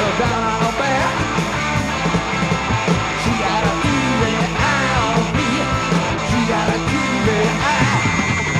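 Live punk rock band playing loudly on electric guitars, bass guitar and drums, with a steady drum beat.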